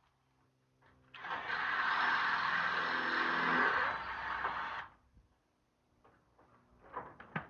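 A small motor runs steadily with a hiss for about four seconds and then stops; a few light clicks follow near the end.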